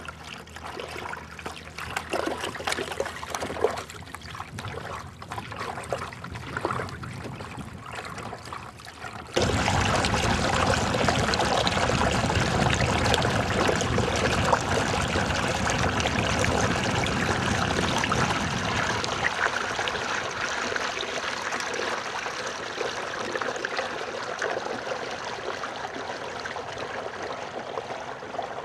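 Water trickling and splashing along the hull and outrigger float of a sailing sea-kayak trimaran. About nine seconds in it turns abruptly into a louder, steady rush of water that eases slightly later on.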